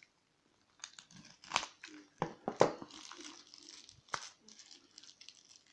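Parcel wrapping being unwrapped by hand: irregular crinkling and crackling, with a few sharp louder crackles, starting about a second in.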